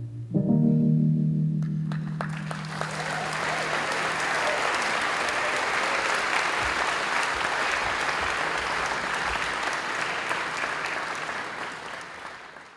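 A final electric piano chord rings out and dies away over a few seconds. An audience breaks into applause about two seconds in, and the applause fades near the end.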